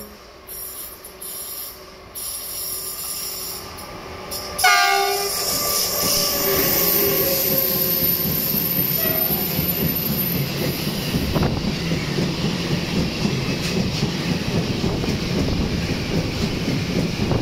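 A freight train of loaded car-carrier wagons approaching and passing close by. The locomotive gives a short horn blast about five seconds in, then the wagons rumble past with clattering wheels and a high wheel squeal for a few seconds.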